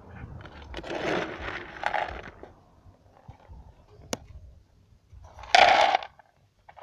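Dry dog kibble poured from a plastic cup into a food bowl, rattling in two rushes: one about a second in and a louder one near the end, with a single sharp click between them.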